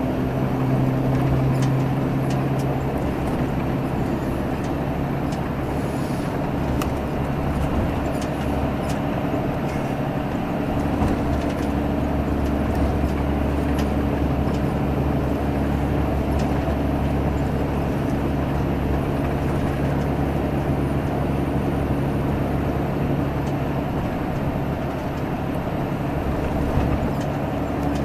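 Diesel engine of a Salutaris intercity bus running steadily at highway speed, a continuous low drone over road noise. Its low tone shifts about three seconds in and again around eleven seconds in.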